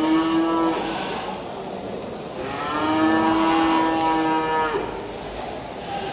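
Cattle mooing: a short moo at the start, then a longer, steady one lasting about two seconds.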